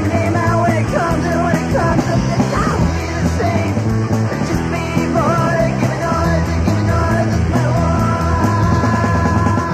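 Loud punk rock song: a full band playing steadily with yelled vocals over it.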